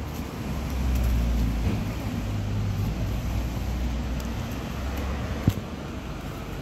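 Street traffic with a motor vehicle's engine running low and steady close by, swelling after about a second and easing off near the end. A single sharp knock sounds near the end.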